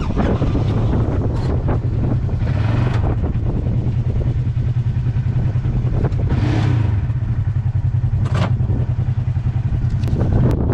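Polaris RZR 900 XP side-by-side's twin-cylinder engine running steadily as the UTV drives slowly over rough dirt, with a few short knocks from the chassis.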